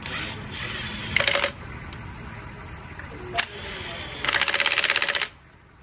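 Impact wrench hammering in two bursts of rapid blows over its motor's hum: a short one about a second in, then a louder one lasting about a second near the end, with a single sharp click between them.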